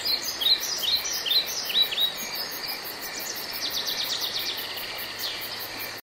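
Small birds chirping in quick, short curved calls, densest in the first two seconds, over a fast, even, high-pitched insect-like pulsing.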